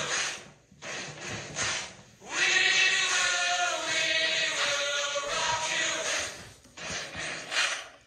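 A voice chanting in long, wavering, drawn-out notes, in several phrases with short pauses between them, cutting off suddenly near the end.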